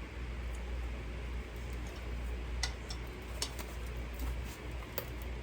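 A few light metallic clicks of an open-end wrench working a nut on the motorcycle's bracket, over a steady low hum.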